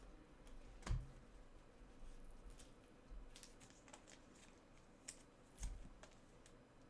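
Faint, scattered light clicks and taps of small objects being handled on a desk, with two soft thumps, one about a second in and another past the middle.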